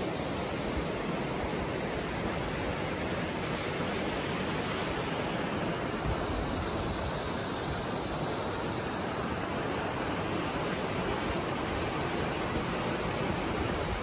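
Steady rush of water from a rocky mountain stream and its small waterfall, an even hiss without breaks.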